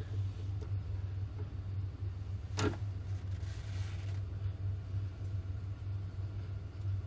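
Steady low hum with a single sharp click about two and a half seconds in, as a twist drill bit is handled and taken from a drill press chuck.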